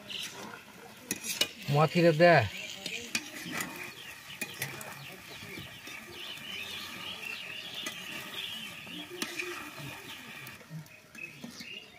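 Long metal spatula scraping and stirring rice in an iron kadai over a wood fire, with a light sizzle. About two seconds in, a short loud call with a falling pitch cuts through.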